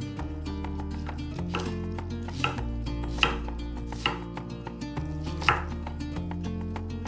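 A knife chopping on a cutting board: about five separate cuts, unevenly spaced, over soft background music.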